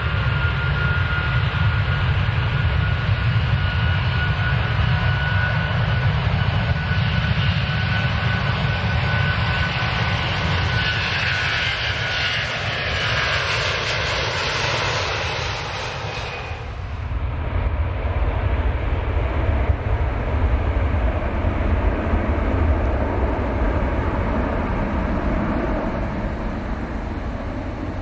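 Airplane taking off: steady engine noise with a faint high whine, growing into a louder hiss about eleven seconds in. The hiss cuts off sharply around seventeen seconds, leaving a low rumble that fades near the end.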